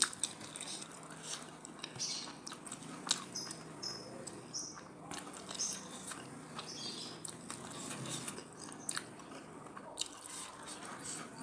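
Close-miked chewing of a mouthful of jengkol (dogfruit) balado and rice, with many short, wet mouth clicks.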